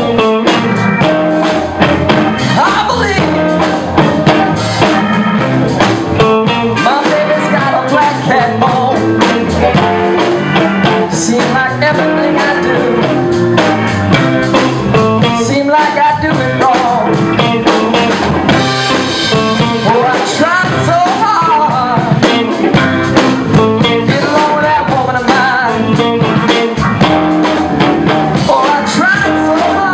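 Live blues-rock band playing, with electric guitars, bass guitar and drum kit.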